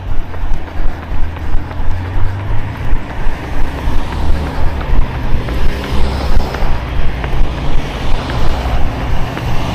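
Running footsteps jolting a handheld camera, an even beat of thuds a little over two a second, over a steady low rumble.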